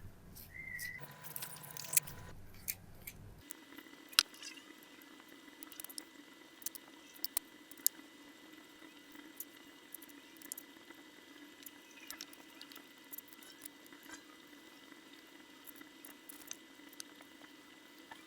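Sparse small clicks and sharp metallic taps, a few louder ones early on, over a steady low hum.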